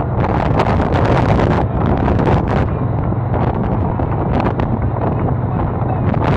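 Heavy wind buffeting the microphone in frequent gusts over the steady low drone of the Seadog Extreme speedboat's engines running at speed.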